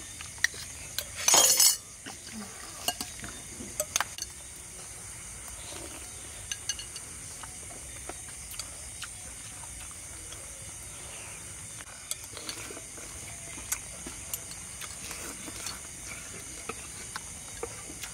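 Dishes and utensils clinking: scattered light taps and clicks, with one louder, longer scraping clatter about a second and a half in.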